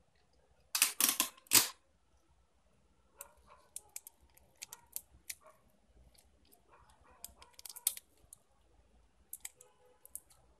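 Clear sticky tape pulled off the roll in a few quick rasps about a second in. Then the crinkle of cellophane and paper with small clicks as the tape is wound round the wooden skewer.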